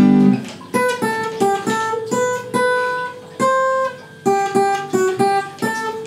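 Acoustic guitar instrumental break: a strummed chord rings out, then a melody of single picked notes, each ringing briefly and fading.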